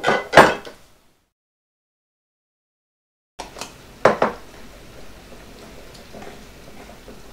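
Glass jars knocking and clinking on a kitchen counter as they are set down and handled: two sharp knocks right at the start, then about two seconds of dead silence, then a few lighter clinks about four seconds in over low room noise.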